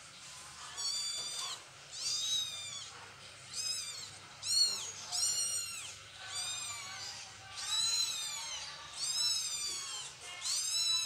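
Newborn kittens mewing: about ten high, thin cries, each rising then falling, roughly one a second.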